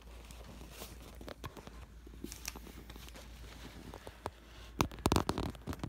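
Faint scattered clicks and rustles of handling indoors, with a cluster of louder clicks about five seconds in, over a steady low hum.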